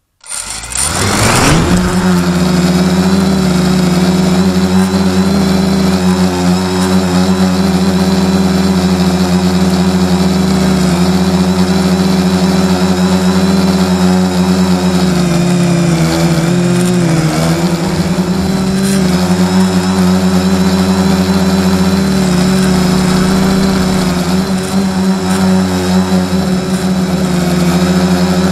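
Electric motor and propeller of a radio-control plane, heard from its onboard camera: the pitch climbs quickly as the motor spools up for launch, then holds a steady pitched drone. The pitch dips briefly about halfway through.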